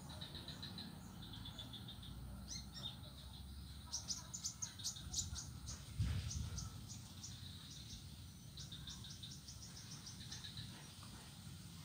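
Birds chirping and insects trilling in rapid pulses, with a low rumble underneath and one dull thump about six seconds in.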